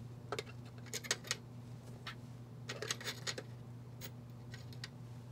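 EPROM chips clicking and tapping as they are set down one by one into the drawer of a UV EPROM eraser: a few scattered clusters of small sharp clicks over a faint steady hum.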